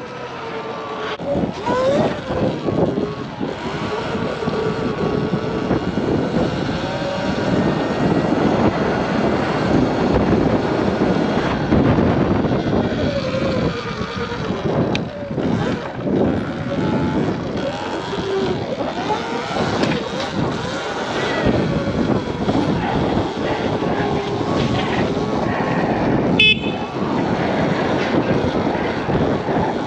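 Sur-Ron electric dirt bike being ridden, its motor whine rising and falling with speed under heavy wind noise on the microphone. A sharp click near the end.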